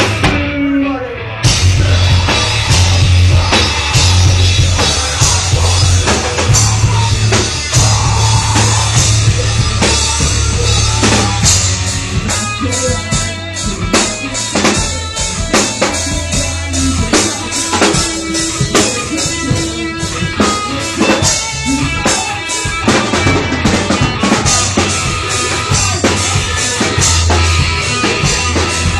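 Live rock band playing loud instrumental rock on drum kit, bass and guitar. After a short break, the full band crashes back in about a second and a half in.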